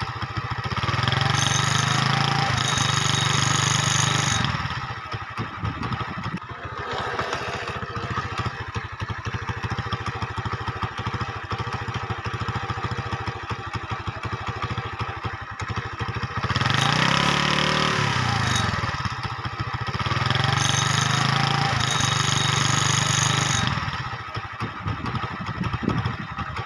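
Tractor engine sound: steady running, dropping about four seconds in to a quieter rattling stretch, then revving up again around seventeen seconds and running steadily before easing off near the end.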